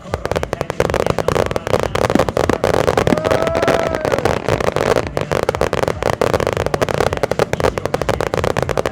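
Fireworks finale barrage: a dense, continuous rattle of overlapping bursts and crackling that starts suddenly.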